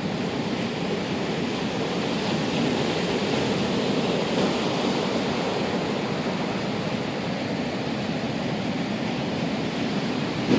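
Ocean waves breaking in strong wind: a steady rushing noise with no single crash standing out.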